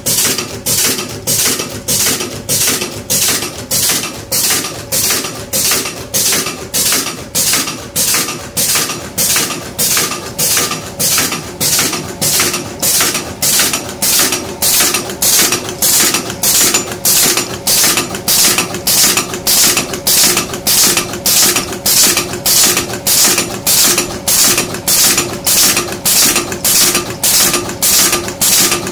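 Automatic aluminium staple-making press running in a steady rhythm, about one and a half to two strokes a second, over a steady hum.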